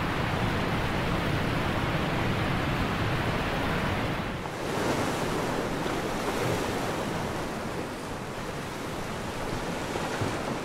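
Steady rush of ocean surf breaking on a shore, dipping briefly about four seconds in and then coming back brighter.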